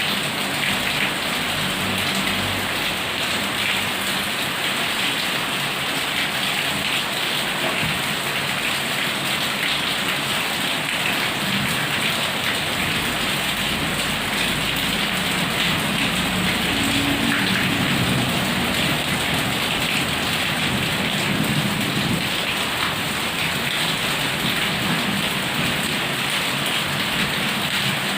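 Heavy rain falling steadily in a dense, even hiss. Low rumbles of thunder come in from about the middle and again near the end.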